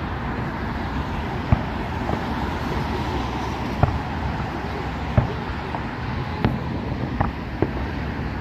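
Distant fireworks going off: about six irregular sharp bangs over a steady background rumble of traffic and outdoor noise.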